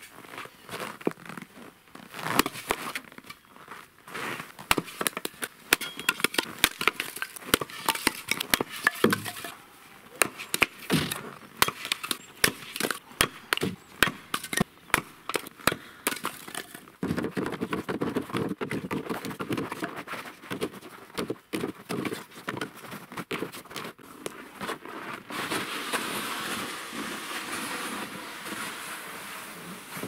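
Split firewood knocking and clattering as the pieces are handled and loaded, with many sharp knocks in quick succession. About 17 seconds in this gives way to a steady scraping rush as a plastic sled loaded with firewood is dragged over packed snow.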